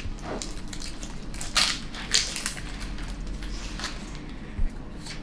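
Foil Pokémon booster pack wrapper crinkling and tearing as it is opened by hand, in several short, sharp rustling bursts.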